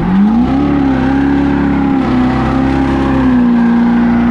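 Duramax turbo-diesel V8 of a Chevrolet pickup, heard from inside the cab, revved up within the first half second and then held at a steady higher rpm, building boost toward 15 psi for a launch.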